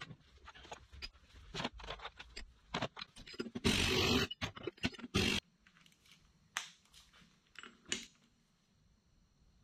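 Tools clinking and knocking on the HJ45 differential's pinion housing and flange, with a loud rattling burst of about a second from a cordless impact wrench on the pinion nut near the middle and a shorter burst just after. This is the pinion nut being run up before the bearing preload is checked.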